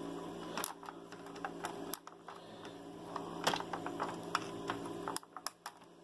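Scattered light plastic clicks and taps from the instrument cluster's plastic housing and gauge face being handled and pressed together, with a quick cluster of clicks near the end, over a steady low hum.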